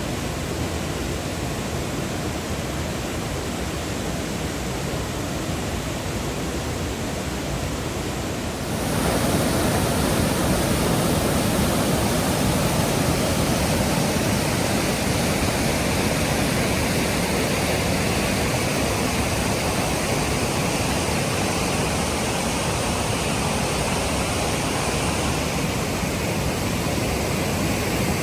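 Waterfall rushing: a steady wash of falling water that jumps abruptly louder and fuller about nine seconds in.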